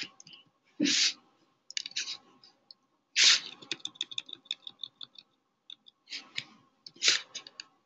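Typing on a computer keyboard: irregular runs of light key clicks. Three short hisses, about a second, three seconds and seven seconds in, are louder than the keys.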